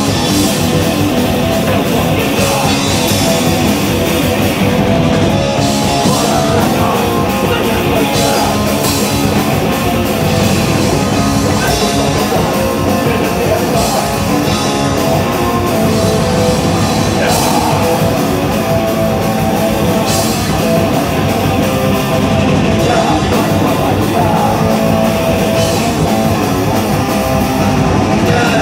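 A punk band playing loud and fast, live: distorted guitars, bass and a pounding drum kit, heard from the crowd.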